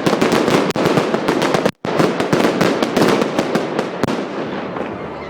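Daytime fireworks going off in a rapid, dense crackle of bangs. The sound cuts out completely for an instant just under two seconds in, and the bangs thin out near the end.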